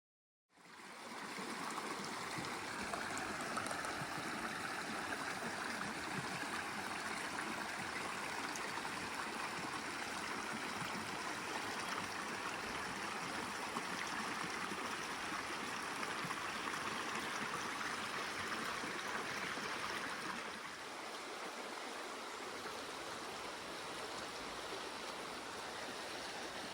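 A stream flowing steadily, a continuous rush of water that fades in during the first second or two and becomes a little quieter about three-quarters of the way through.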